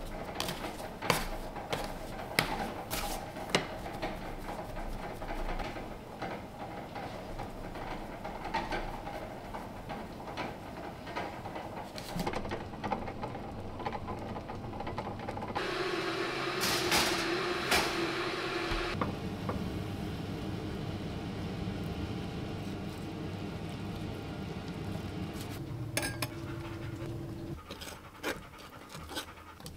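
Kitchen working sounds: a metal bench scraper scraping and tapping on a floured wooden bench as dough is cut and handled, with sharp clicks. Partway through, a steady hum comes in for a few seconds, and again briefly near the end.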